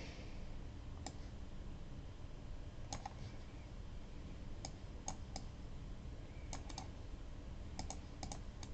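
Faint, scattered clicks of a computer keyboard and mouse, about a dozen, some single and some in quick runs of two or three, over a low steady hum.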